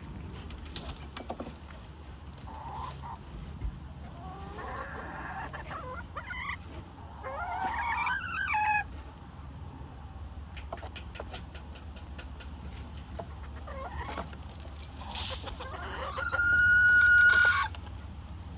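Chickens clucking and calling, with a loud rising call about eight seconds in and a longer, steady, high-pitched call near the end, the loudest sound.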